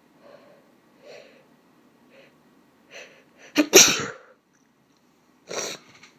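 A woman's sneeze that she tries to hold back. A few short catching breaths build up, then a loud sneeze breaks through a little past halfway, followed by a shorter second burst near the end.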